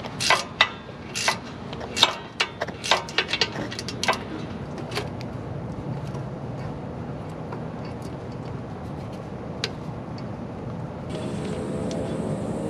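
Irregular metallic clicks and knocks from a 1/4-inch ratchet with an 8 mm socket working the wheel speed sensor bolt at a Jeep Wrangler JK's rear brake. The clicks are dense for the first few seconds, then thin out to a few faint ones. About eleven seconds in, a steady low hum comes in.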